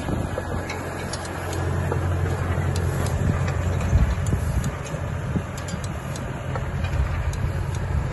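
Tractor engine running steadily at slow working speed, pulling a vegetable transplanter over bare soil, with scattered light mechanical ticks.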